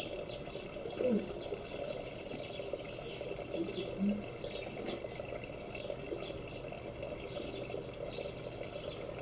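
Small birds chirping, short high calls scattered through, over a steady rushing background noise.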